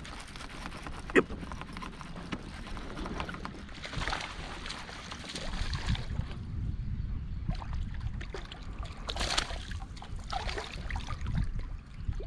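A hooked bass splashing at the surface several times as it is reeled toward a kayak, over water sloshing against the hull and a low steady rumble.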